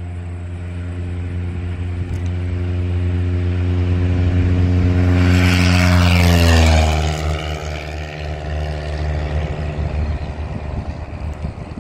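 Engine-driven vehicle passing close by. Its steady low engine drone grows louder to a peak about six to seven seconds in, and its pitch drops as it goes past.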